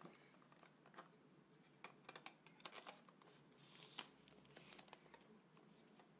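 Faint clicks and scratches as a lens hood is twisted off a camera lens and turned around, the sharpest click about four seconds in.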